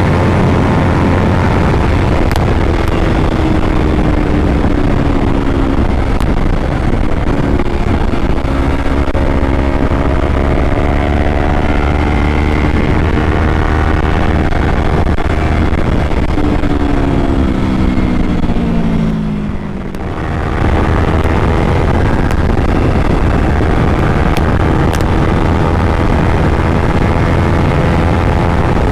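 Yamaha R3's parallel-twin engine through an Akrapovic exhaust, pulling under load in the higher gears of a top-speed run: its pitch climbs slowly for long stretches, falls away about two-thirds of the way through with a brief drop in level, then steadies again. A steady rush of noise lies under it throughout.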